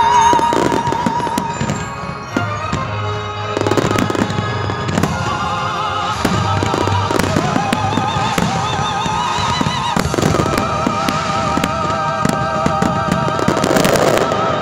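A fireworks display: shells bursting and crackling again and again over music with long, wavering held notes.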